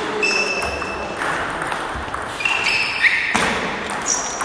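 Table tennis rally: a celluloid-type ball knocking off bats and the table a few times, with short high squeaks from players' shoes on the sports-hall floor.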